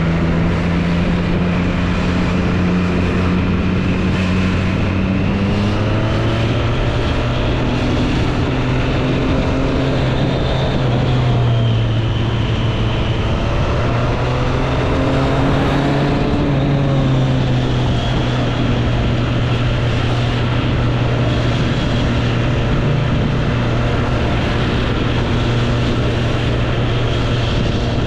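Triumph Street Triple 765 RS's 765 cc inline three-cylinder engine running under way, its note climbing and dropping a few times in the first half as the rider gets on and off the throttle and changes gear, then holding steady at a cruise. Wind and road noise run beneath it.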